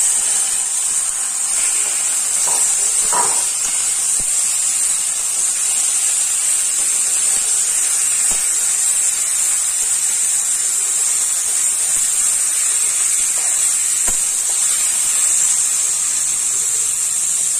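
Raw mutton sizzling loudly in hot oil in a kadai: a steady hiss throughout. A few faint taps of the metal spatula against the pan as the meat is stirred.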